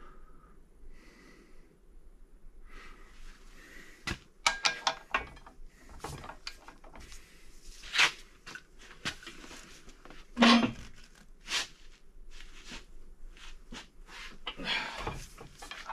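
Metal hand tools clinking and knocking against the BMW N55 crankshaft hub bolt as a socket and long breaker bar are fitted for its final angle-torque. There is a quick run of clicks a little after four seconds in, and the sharpest knocks come about halfway through and again a little later.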